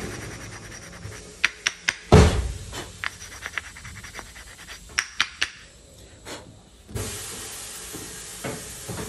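Disc brake pads clicking and knocking together as they are handled, with a louder knock about two seconds in. About seven seconds in, an aerosol can starts spraying onto a pad with a steady hiss.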